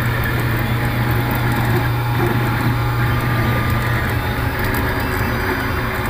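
Anycubic Kossel Plus linear delta 3D printer printing: its stepper motors whir and chatter as the effector moves over the part, over a steady low hum.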